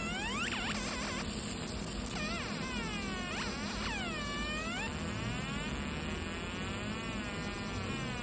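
Fiber laser marking machine deep-engraving steel: its galvo scanner gives a buzzing whine whose pitch swoops down and back up again and again as the beam traces the logo, then turns to a wavering buzz with slow glides about five seconds in, over a steady low hum.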